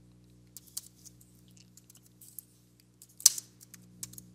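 Computer keyboard typing: scattered, irregular keystrokes, one clearly louder a little after three seconds in, over a faint steady electrical hum.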